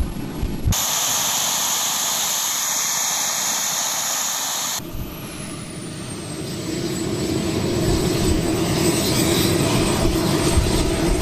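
JetCat microjet turbine running at high power on a static test stand: a steady jet roar and hiss. About five seconds in, its high whine drops in pitch and then holds steady.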